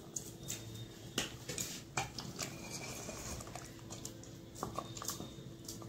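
Wooden spatula stirring thick korma gravy in a metal cooking pot: soft, irregular taps and scrapes against the pot.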